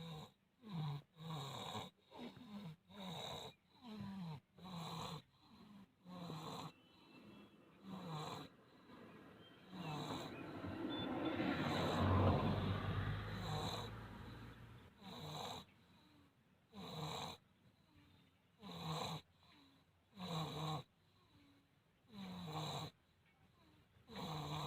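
Snoring: short rhythmic snores about once a second, each with a low tone that falls in pitch. Around the middle comes a longer, louder stretch of noise.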